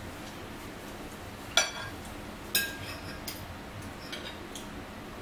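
Metal fork and spoon clinking on a dinner plate while eating: two sharp clinks with a short ring, about a second and a half and two and a half seconds in, then a few lighter taps.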